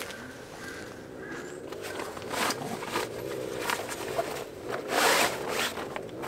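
A zipper being pulled in several short rasping strokes, the longest and loudest about five seconds in.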